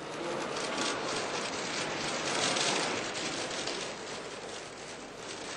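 Audience applauding: a dense patter of clapping that swells to its loudest about halfway through and then eases off.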